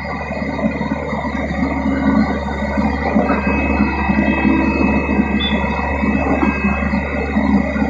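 Heavy diesel construction machinery running steadily: a constant low engine hum with a steady high whine over it and an uneven, pulsing rumble.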